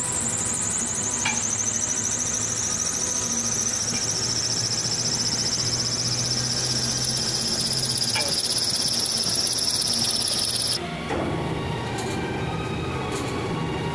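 High-speed heater mixer for plastic compounding running with an empty stainless bowl. A high whine falls in pitch over the first several seconds, then holds steady. About eleven seconds in it cuts off abruptly, giving way to a rougher, noisier mixer hum with light rattles.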